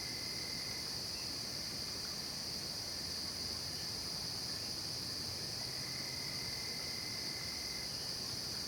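Night insect chorus of late-summer forest insects: a continuous, steady high-pitched trilling. A fainter, lower trill joins for about two seconds in the second half.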